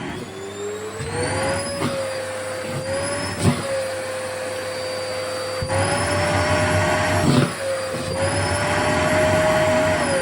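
Vacuum cleaner running with fabric being sucked into the nozzle. The motor's tone slowly rises and dips as the airflow changes, with a few short knocks. Near the end its pitch starts to fall.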